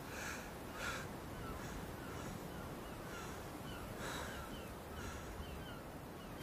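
Wild birds calling: a few short harsh calls, about a third of a second in, about a second in and again about four seconds in, over a run of many brief high chirps.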